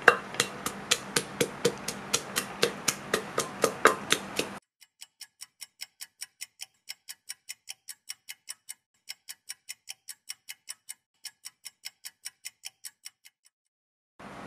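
Wooden pestle pounding chilies in a clay mortar, with steady strikes about three a second. About four and a half seconds in, the room sound drops out and only sharp, evenly spaced ticks continue, about four a second, like a clock, until near the end.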